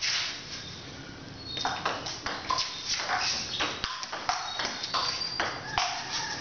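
A table tennis rally: the plastic ball knocking off rubber-faced paddles and bouncing on the Joola table in a quick run of sharp clicks, several a second, each with a short ringing ping. The rally's knocks begin about one and a half seconds in.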